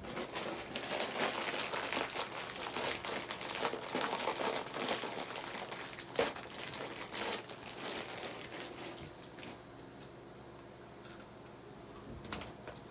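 Crinkling, crumpling noise, dense and crackly for the first seven or eight seconds, then thinning to a few scattered clicks and crackles.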